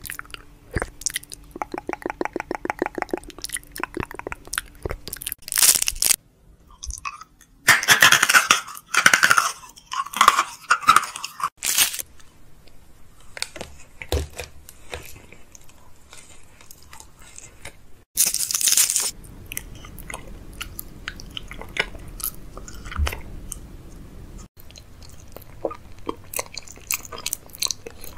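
Close-miked ASMR mouth sounds: chewing and crunching with many short sharp clicks, including a quick even run of clicks about two seconds in.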